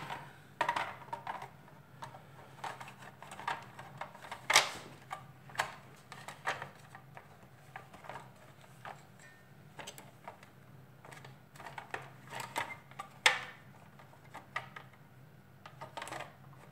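Plastic housing parts of a Dyson DC37 vacuum cleaner being handled and pressed together by hand: scattered light clicks and knocks, with two louder knocks, about four and a half seconds in and about thirteen seconds in.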